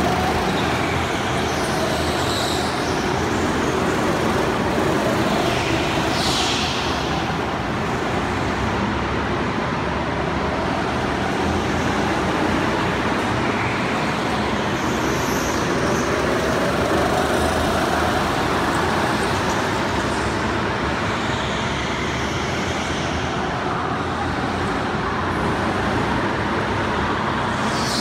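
Go-karts running laps on an indoor track, their motors rising and falling in pitch as they pass, over a steady din that fills the hall.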